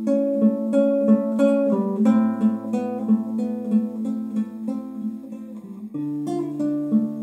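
Solo acoustic guitar playing an instrumental passage: picked notes ringing over held bass notes, the chord changing about two seconds in and again near six seconds.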